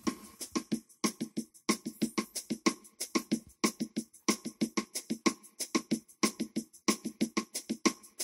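Background music of quick, evenly spaced percussion strokes, several a second, with no melody standing out.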